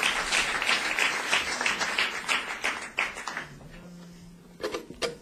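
Concert audience clapping in a steady rhythm of about three claps a second, dying away after about three seconds. Near the end, a few plucked notes on a stringed instrument begin the next number.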